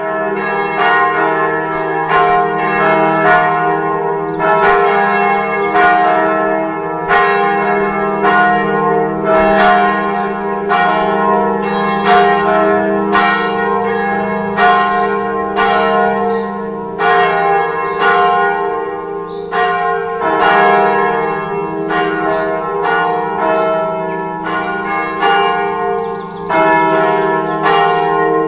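Swinging church bells ringing together in a full peal, strikes overlapping at an uneven pace with long hum tones sustained beneath. The bells are a bronze bell cast by G. Schimmel in 1705 and two Eijsbouts bells of 1972.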